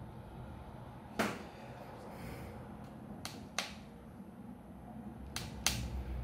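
Small screwdriver and the tiny M.2 retaining screw clicking as the screw is driven back in to hold an NVMe SSD in a laptop: five sharp clicks, the loudest about a second in, then two pairs.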